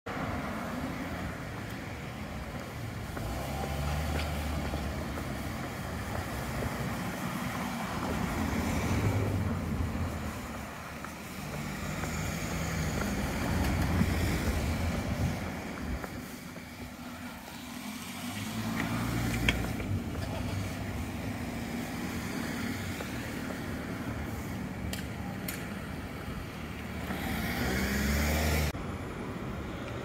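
Road traffic: cars passing one after another along a town street, each rising and fading away, over steady outdoor background noise.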